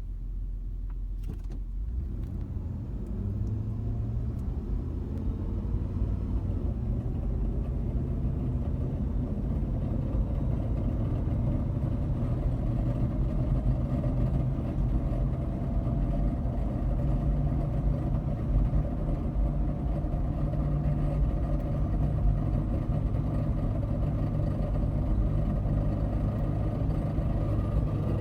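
A 2000 Jeep Grand Cherokee with the 4.7 V8 driving, giving a steady low drone that builds over the first several seconds and then holds. This is the unexplained noise the owner wants identified.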